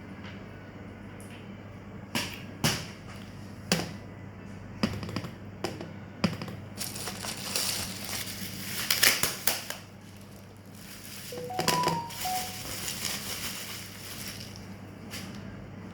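Packaging being handled: several sharp knocks and clicks, then two spells of crinkling and crushing, over a low steady hum.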